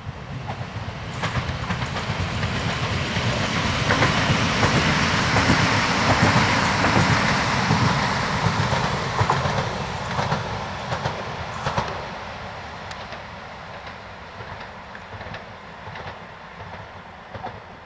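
ED78 electric multiple unit passing on the line. The rumble of its wheels on the track swells to its loudest around five to eight seconds in, then slowly fades as it moves away, with scattered sharp clicks from the wheels passing over rail joints.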